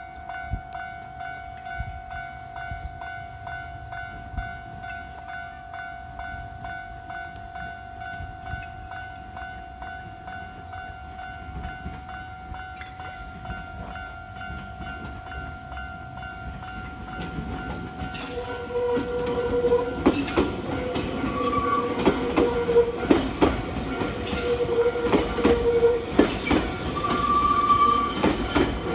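Japanese railway level-crossing warning bell ringing steadily. From about 18 seconds in, a train passes over the crossing, growing louder, its wheels clicking and knocking over the rail joints.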